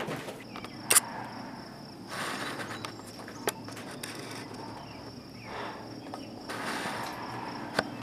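Insects trilling steadily at a high pitch, with a few sharp clicks (the loudest about a second in) and soft shuffling footsteps.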